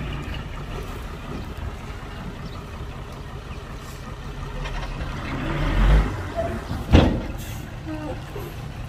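Dump truck engine running with a steady low rumble, swelling to a louder surge about six seconds in, then a single sharp bang about seven seconds in.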